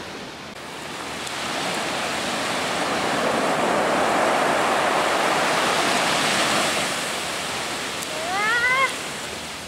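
Small sea waves breaking and washing up a sandy beach, the surf swelling for a few seconds and then fading. Near the end a short rising call cuts through.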